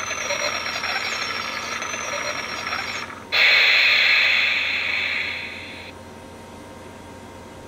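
Toy train coin bank's little motorised train running round its plastic track with a steady whir, then stopping at the station. About three seconds in, a loud steam-like hiss starts and fades out by about six seconds.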